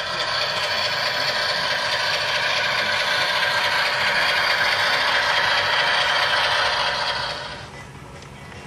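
Intermountain ES44AC model diesel locomotives running past close by: a steady mechanical whirring and clattering from their drives and wheels on the track, fading near the end as they move away.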